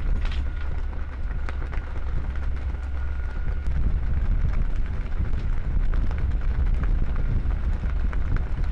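Wind buffeting the microphone over a steady low rumble, typical of recording on a ship's deck at sea. A faint steady whine runs through the first few seconds.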